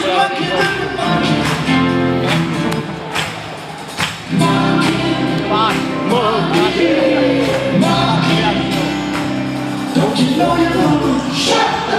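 Live rock band playing through an arena PA with a steady beat, a male lead vocal over it, and the big hall's echo.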